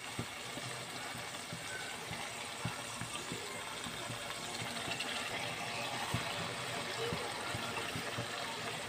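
Onions, tomatoes and green chillies frying in hot oil in a wok: a steady sizzle with scattered small pops and crackles as the tomatoes soften.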